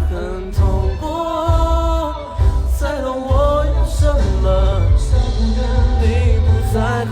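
A Mandopop song performed live over loud amplified music with a steady beat, with an audience member singing along close to the microphone, holding long notes.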